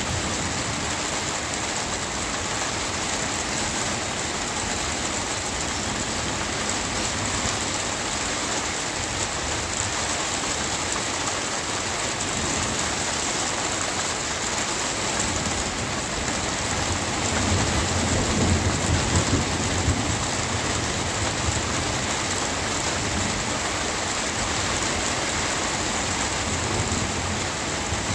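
Steady rain. About halfway through, a low roll of thunder builds, peaks and fades away again.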